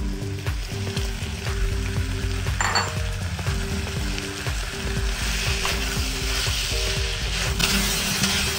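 Stir-fried chicken, vegetables and cashew nuts sizzling in a wok, with the scrape and clicks of a wooden spatula against the pan as spring onions and cashews are tossed in. The sizzling grows louder near the end. Soft background music with held notes plays under it.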